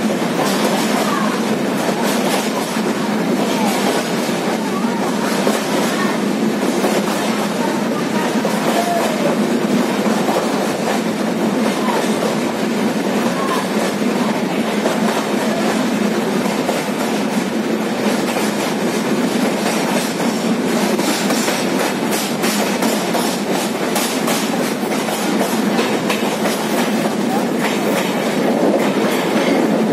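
Train running along the track, heard from on board: a steady, loud rush of wheels on rail with some clickety-clack.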